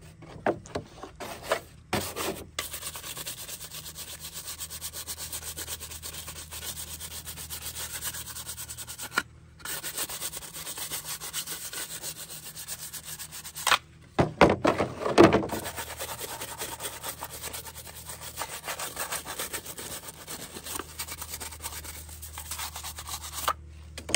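Stiff plastic-bristle brush scrubbing wet plastic chainsaw covers in rapid back-and-forth strokes. The scrubbing stops briefly twice, and there are a few louder knocks of the parts being handled about midway.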